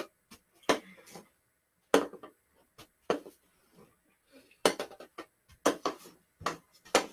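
Hockey stick blade knocking a hard plastic stickhandling ball during an off-ice stickhandling drill: irregular sharp clacks, about ten in all, with a pause of about a second near the middle.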